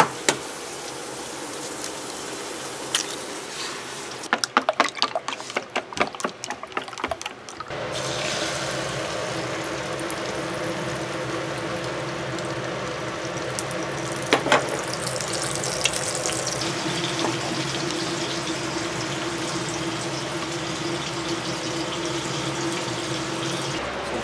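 Kitchen work sounds: a few seconds of clattering utensils and dishes, then water running steadily from a tap into a sink, which starts about eight seconds in.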